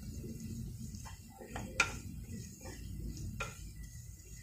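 Wooden spatula stirring onion and spice masala frying in oil in a steel pot, with scattered light scrapes and knocks against the pot's side; one sharper knock just under two seconds in.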